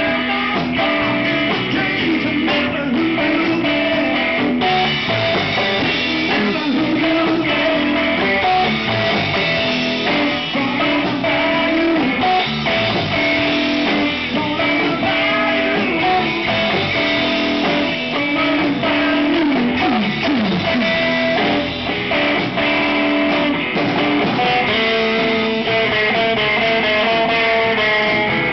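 Live band playing, with a semi-hollow electric guitar over drums and bass guitar, loud and without a break.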